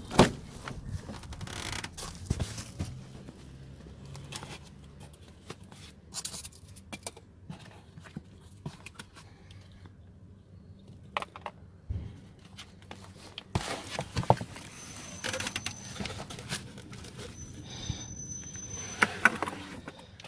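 Handling noise from a car battery being moved about: a sharp knock right at the start, then scattered clicks, knocks, scrapes and rustles.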